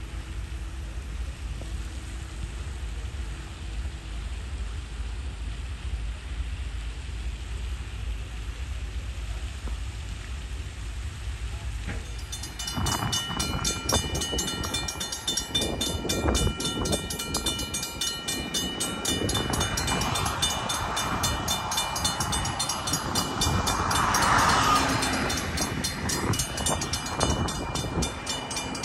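Napa Valley Wine Train, a diesel-hauled passenger train, running past. A low rumble gives way suddenly, about twelve seconds in, to the train's sound, which grows to its loudest about two-thirds of the way through and then eases.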